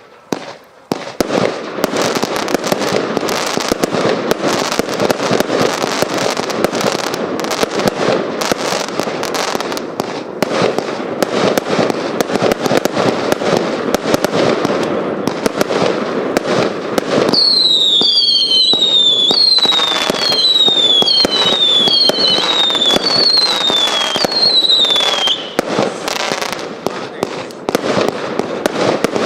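Hallmark Fireworks Vanquish 320-shot compound cake firing: a dense, rapid barrage of shots and crackling bursts. For several seconds in the second half, a run of whistles comes in about one a second, each falling in pitch.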